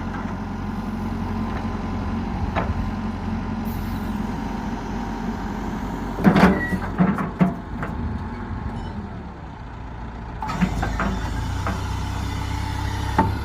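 Diesel engine of a backhoe loader running steadily. A cluster of loud knocks comes about six seconds in, with a few more about eleven seconds in and near the end.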